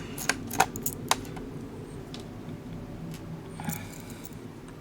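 Small sharp clicks and taps of a screwdriver and tiny screws being handled on a laptop during disassembly: a quick run of clicks in the first second and a half, then a brief scrape a little before four seconds in, over a steady low hum.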